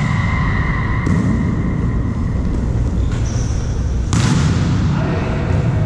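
Volleyball being hit during play in a gym hall: four sharp smacks of the ball, the last about four seconds in, over a steady low hall rumble.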